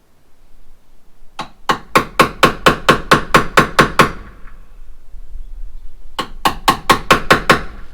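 Hammer blows in two quick runs, about five strikes a second, each with a short ringing note: about a dozen, then after a pause about eight more.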